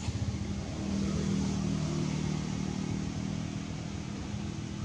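A motor vehicle's engine running, a steady low hum that grows louder about a second in and eases off later.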